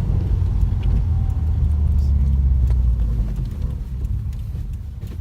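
Subaru WRX's turbocharged flat-four engine and road noise heard from inside the moving car: a low steady drone that drops in pitch about a second in and grows quieter toward the end.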